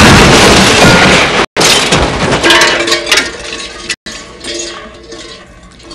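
A loud crash with crackling and clinking, like breaking metal and glass, dying away over several seconds.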